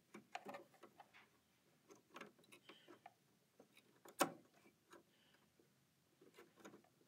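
Faint clicks and taps of a sewing machine's AcuFeed Flex dual-feed foot holder being fitted onto the presser bar while its screw is turned by hand, with one sharper click about four seconds in.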